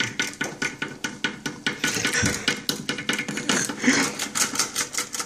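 Rapid, irregular clicking and clattering of metal kitchen utensils on the counter, several quick clicks a second.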